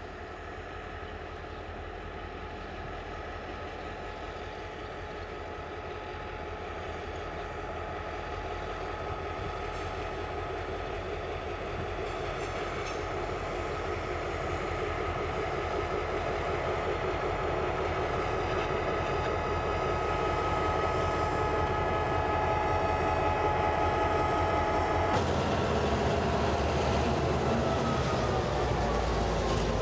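A train approaching and running by, growing steadily louder, with several steady humming tones over a low rumble. Near the end the tones begin to drop in pitch as it passes.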